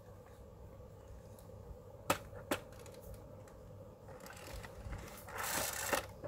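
Diecast model van being handled: two sharp clicks about half a second apart as it is set down on a hard floor. A little past five seconds comes a short rasp of its wheels on the floor, ending in a click.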